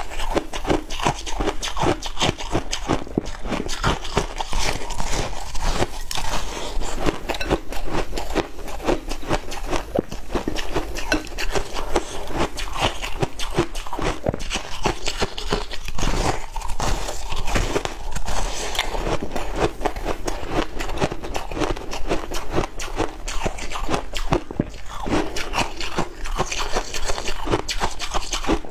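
Close-miked crunching and crackling of a cola-soaked block of fluffy ice being bitten and chewed, a dense run of quick crisp crunches.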